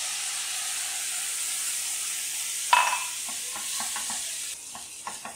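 Cold milk poured into a hot pan of shredded chicken and onions, sizzling steadily. About two and a half seconds in there is one sharp knock, followed by scraping clicks of a spatula stirring the mixture as the sizzle dies down.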